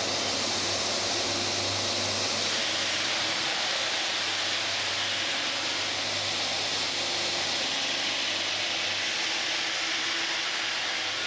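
Ring-system granite cutting machine running steadily, its saw grinding through hard stone with a continuous hissing noise over a low machine hum.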